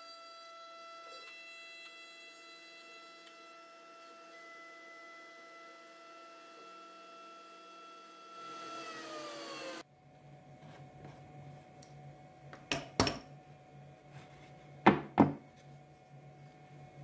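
CNC router spindle running with a steady high whine, then winding down in pitch about ten seconds in and cutting off. Afterwards there are two pairs of sharp wooden knocks, the loudest sounds, as the routed poplar slat is handled and lifted off the machine table.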